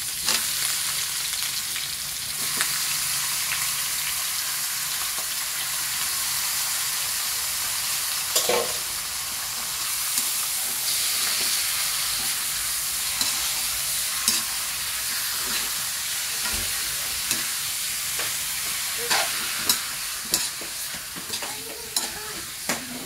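Raw chicken pieces sizzling in hot oil in a steel wok, a steady frying hiss. A metal spatula scrapes and clacks against the wok now and then as the pieces are stirred, more often near the end.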